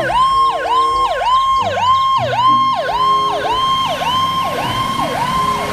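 Fire engine's electronic siren in a fast yelp, sweeping up and falling back about twice a second, then settling into a held high tone near the end. A lower steady tone sounds in a few short blasts during the first half.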